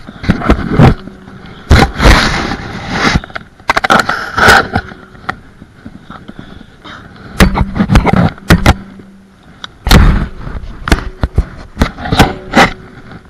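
Loud, irregular knocks, scuffs and rustling close against the microphone as a sheep is grabbed and handled, wool and clothing rubbing over the camera.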